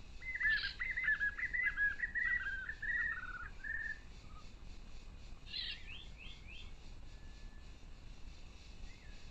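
A wild bird singing a rapid run of short notes, each dropping in pitch, for about three seconds, then a shorter, higher phrase a couple of seconds later.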